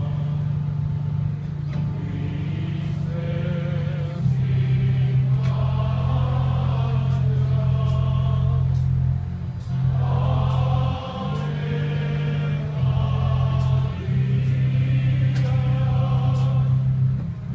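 A choir singing a liturgical hymn, with steady held low notes underneath that shift pitch every second or two.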